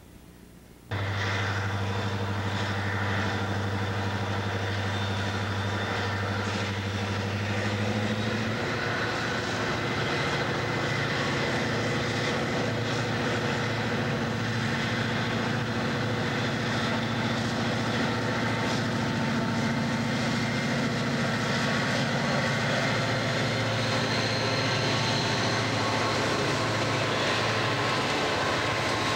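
Diesel freight locomotives, a Canadian Pacific SD40-2 leading a Soo Line SD60, passing close by with their engines running in a steady, loud low drone. The sound starts suddenly about a second in, and the engines' pitch shifts about eight seconds in.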